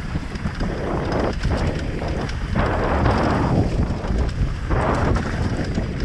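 Heavy wind buffeting the microphone over a low rumble, with constant small rattles and clicks, as from a mountain bike running over a dirt trail.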